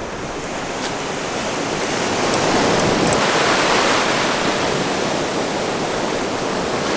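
Ocean surf: waves breaking and washing up the beach, a steady rushing wash that swells to its loudest about halfway through.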